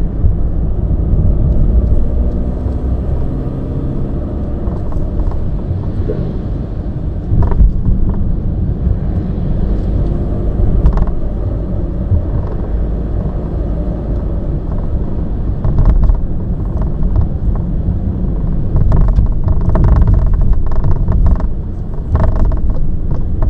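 Inside the cabin of a VW T6.1 bus driving over a rough, potholed road: steady low rumble of tyres and suspension, with scattered rattles and knocks from the loose A-pillar trim, coming thick and fast in a cluster near the end.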